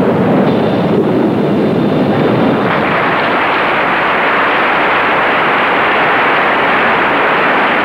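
Steady crowd noise filling a large arena hall, turning brighter about three seconds in.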